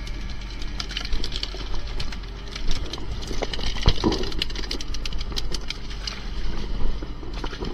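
Striped beakfish thrashing and splashing in water, many quick wet slaps and clicks with a heavier thump about four seconds in, over the steady drone of the fishing boat's engine.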